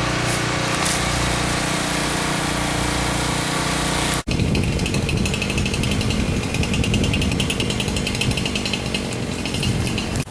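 Tree-cleanup power equipment running: a steady engine drone for about four seconds, then, after an abrupt cut, a louder rattling machine noise with a fast, even chatter, typical of a chainsaw or chipper at work.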